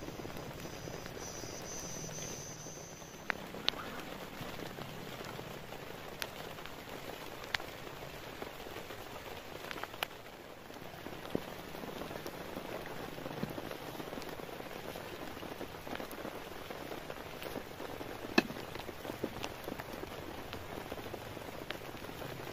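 Steady rain falling on wet vegetation and a tarp, with a few scattered sharp taps, the loudest about eighteen seconds in.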